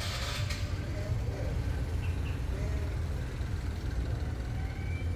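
Steady low rumble of street traffic, with a short rustle right at the start.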